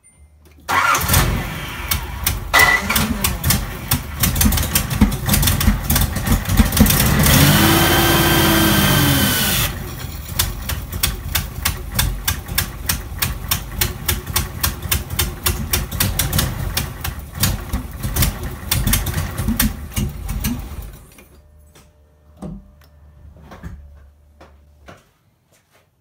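Nissan Z31 300ZX V6 engine cranked and firing, running roughly with an uneven pulsing beat for about twenty seconds before it stops. About seven seconds in, a rising and falling whistle rides over it for a few seconds.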